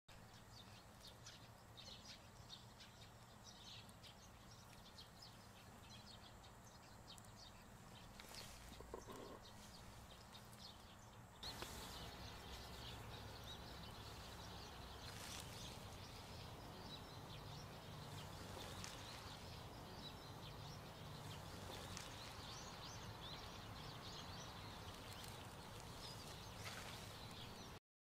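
Faint outdoor ambience: scattered small bird chirps over a low steady hum, growing slightly louder about eleven seconds in.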